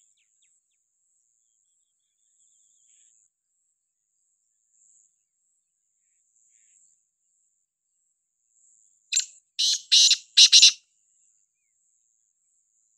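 Black francolin (kala titar) calling once about nine seconds in: a loud, harsh call of four notes in about a second and a half.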